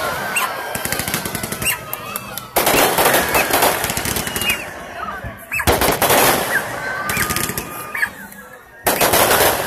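Aerial fireworks going off: three loud bursts about three seconds apart, each a burst of dense crackling, with scattered sharp crackles between them.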